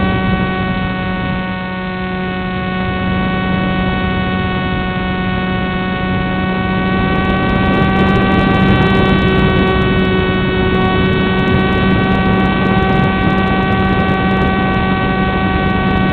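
Electric motor and propeller of a PopWing foam flying wing running at steady throttle in flight, a constant whine heard up close from on board.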